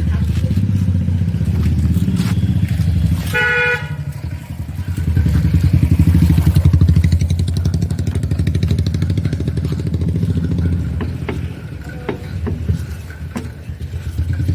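A motor vehicle engine running close by, a steady low pulsing drone that swells about halfway through and eases off near the end, with a short vehicle horn honk about three and a half seconds in.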